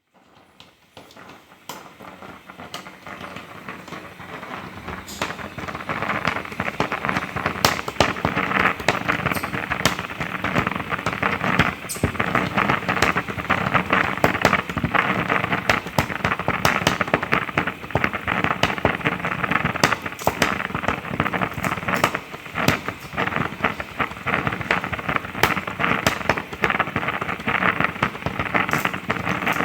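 Steam hissing and spluttering: a steady rushing hiss shot through with many sharp crackles and pops. It grows louder over the first five or six seconds, then holds.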